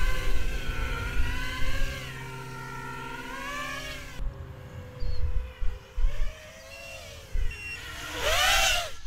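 Brushless motors and propellers of a GEPRC Mark IV 4S 5-inch FPV quadcopter whining, the pitch rising and falling with throttle as it flies. Near the end comes a louder swell that rises then falls in pitch. Wind buffets the microphone throughout.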